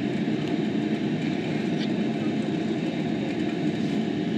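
Steady low rumbling hum of machine noise, like a fan or appliance running, with a couple of faint ticks.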